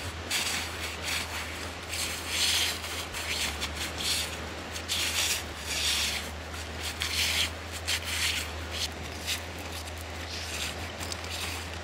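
Short, irregular rubbing and scraping strokes, roughly one a second, over a steady low hum: a painter's bare feet and paintbrush working across a large canvas sheet laid on the ground.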